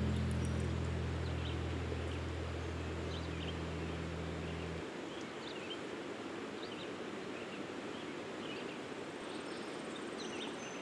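The last guitar chord of the background music fades out over the first few seconds, leaving outdoor ambience: a steady even hiss with scattered short, high bird chirps.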